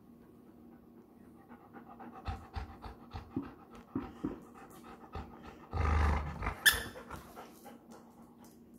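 A dog panting and snuffling as it tugs and mouths a plush toy, with short rustles and clicks of play. There is one louder, low burst of noise about six seconds in.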